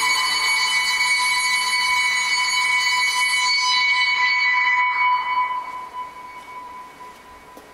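Sustained electronic tones from a sound art installation: a chord of several steady high pitches held together. The upper tones die away first, and the whole chord fades out from about five seconds in, leaving one lingering tone.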